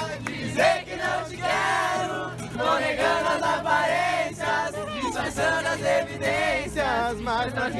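A group of young people singing together, accompanied by a strummed acoustic guitar.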